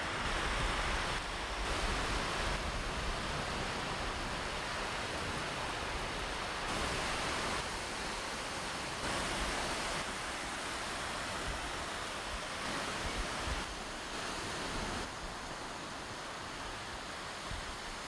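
Small waves breaking and washing up on a sandy shore: a steady rush of surf that swells and eases as each wave comes in, with some wind rumbling on the microphone.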